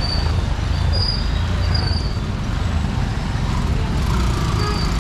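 Street traffic: motor vehicles running past with a steady low rumble.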